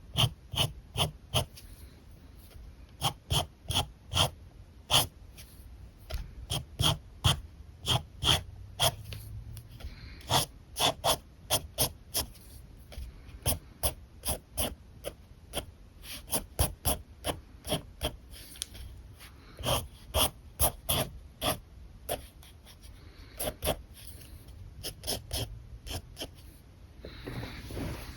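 Short, quick strokes of an alcohol marker on paper, a few per second in irregular runs with brief pauses.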